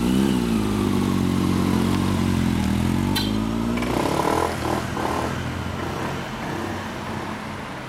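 A Honda CB1100 EX's air-cooled inline-four and a Honda PCX125 scooter pulling away. The engine note climbs, drops at a gear change and climbs again, then fades as they ride off. One of the bikes has an aftermarket White Knight muffler.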